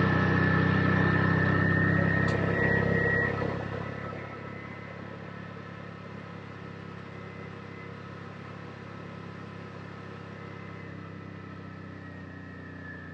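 Side-by-side UTV engine running steadily while driving a dirt forest trail, with a steady high whine over the drone. It is loud for the first three seconds or so, then drops to a lower, even level.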